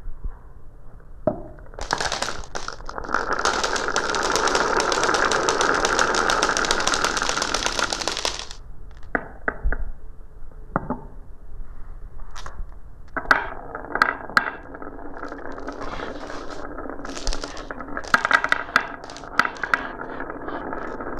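Marbles running down a marble run: a dense stream of rapid rattling clicks for several seconds, then a few separate clacks, then a steady rolling sound with repeated sharp clacks from about two-thirds of the way in.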